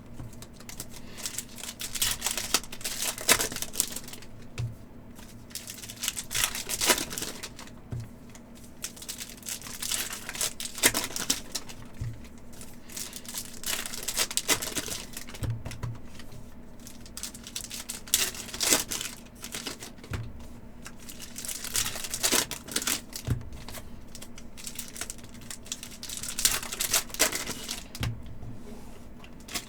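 Foil wrappers of 2024/25 Upper Deck Series 2 hockey card packs crinkling and tearing in irregular bursts as the packs are ripped open.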